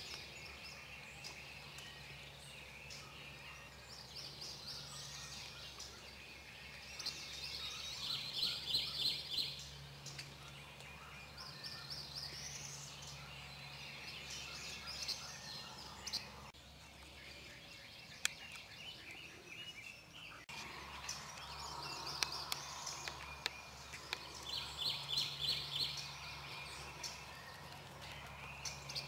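Eastern wild turkey gobbler gobbling, faint: two rapid rattling gobbles about a second long, one about a third of the way in and one near the end, with songbirds chirping in between.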